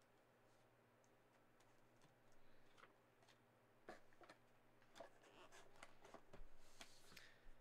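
Near silence broken by faint handling sounds: light clicks and taps of card boxes being moved, starting about three seconds in, with a brief rustle near the end.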